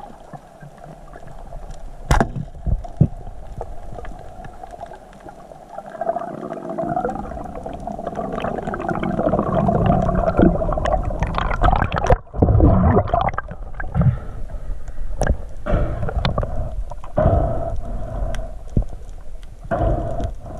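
Underwater recording: water rushing and gurgling past the camera housing as the diver swims, swelling in the middle, with a few sharp clicks and knocks.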